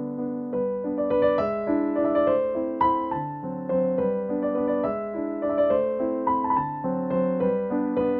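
Background music: a gentle waltz played on piano, a steady run of melody notes over a repeating accompaniment.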